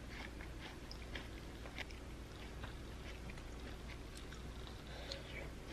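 A person chewing food, faint and close, with soft scattered clicks.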